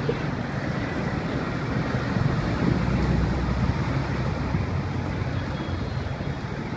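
Steady, low rumbling street background noise with no distinct events.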